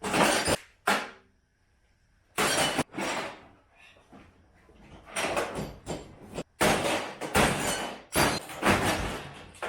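A microwave oven being smashed and broken apart: a few separate sharp bangs and crashes in the first three seconds, then a dense run of them in the second half.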